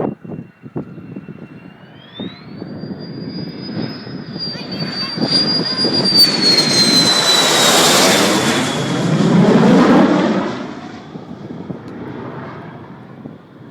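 F-16 fighter jet flying past. A high turbine whine climbs in pitch and then slowly falls, while the jet noise swells to its loudest a little past the middle and then dies away over the last few seconds.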